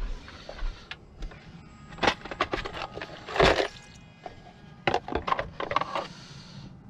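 Gear being rummaged through in an SUV's cargo area: irregular clicks, knocks and clatter of a plastic parts organizer and tools being handled, with the sharpest knock about three and a half seconds in.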